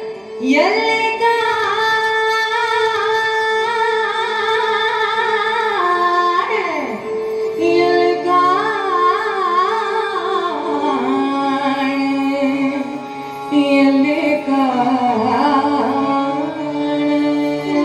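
Kannada devotional folk song: a singer holds long, ornamented notes with slides and wavering pitch, without words, over a steady drone.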